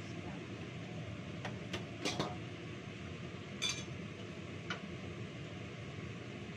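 Metal pans and dishes being knocked and set down on a kitchen counter: a few knocks between one and a half and two seconds in, a ringing metal clink near the middle and a lighter clink a second later, over a steady background hum.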